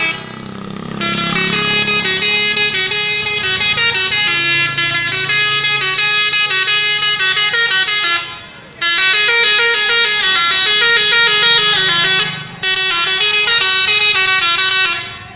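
Tourist bus's multi-tone 'telolet' horn playing a tune, loud, with the pitch stepping from note to note. It plays in three long phrases, with short breaks about eight and twelve and a half seconds in.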